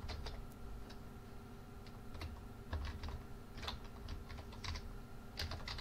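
Typing on a computer keyboard: light key clicks in short, uneven runs with pauses between them.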